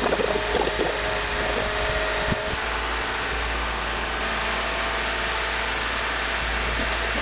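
Toyota Sienna's 2GR-FE 3.5 L V6 engine running steadily with the hood open, as air is bled from its freshly refilled cooling system.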